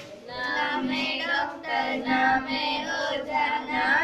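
A group of schoolgirls singing a Hindi children's poem about the neem tree together, in a sing-song tune.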